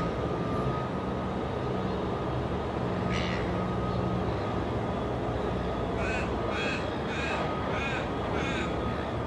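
A crow cawing: one call about three seconds in, then a run of about six caws in quick succession in the last few seconds. Under it runs the steady low hum of a distant diesel locomotive.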